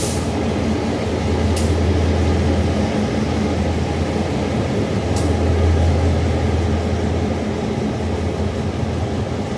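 Diesel train at a station platform, its locomotive engine running with a steady low hum.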